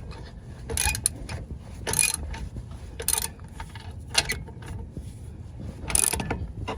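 Hand ratchet clicking in short bursts, about one stroke a second, as a bolt is worked while the brake caliper goes back on.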